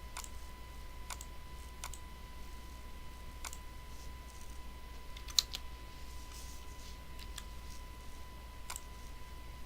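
Scattered clicks of a computer mouse, about eight of them at irregular intervals, with a loud double click about halfway through. A steady faint high tone and low hum run underneath.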